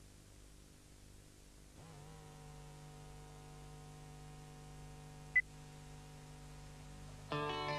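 Faint tape hiss, then a steady hum with several overtones that wavers in about two seconds in, and a single short high beep a little past halfway. Near the end, a band's guitar music starts abruptly.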